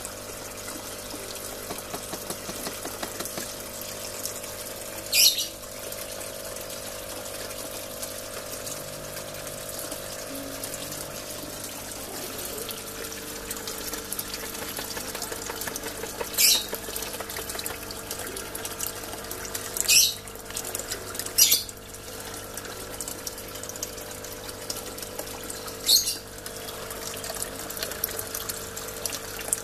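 Water running and splashing steadily into a small tarpaulin fish pond, with a steady low hum underneath. Five short, sharp high-pitched sounds stand out: one about five seconds in, one around sixteen seconds, two close together around twenty seconds, and one near twenty-six seconds.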